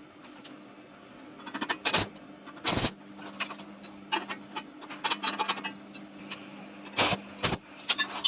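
Metal scraping and rubbing with several sharp knocks, the loudest about 2, 3, 7 and 7.5 seconds in, over a steady low hum.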